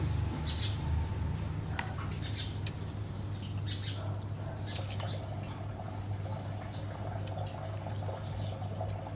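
A person chewing and smacking while eating spicy raw-shrimp papaya salad with fresh vegetables, with scattered short wet clicks and crackles, over a steady low hum.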